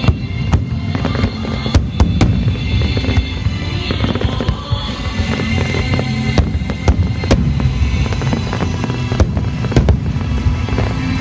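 Aerial firework shells bursting in a rapid barrage of bangs and crackles, with music playing underneath.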